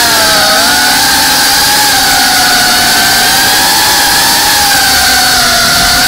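FPV quadcopter's brushless motors and propellers whining close to the onboard camera, at a high pitch that wavers slightly, over a steady hiss.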